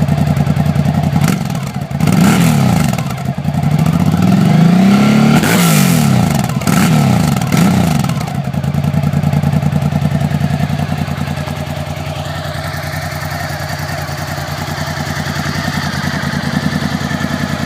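Suzuki V-Strom DL1000's 90-degree V-twin running through a custom exhaust of Two Brothers mid-pipes and Suzuki GSX-R mufflers. It is blipped up and back down several times in the first half, then settles to a steady idle.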